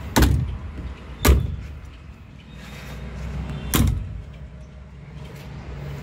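Metal canopy doors of a Kirloskar 125 kVA silent generator set being pushed shut: three sharp bangs, two close together at the start and a third about two and a half seconds later.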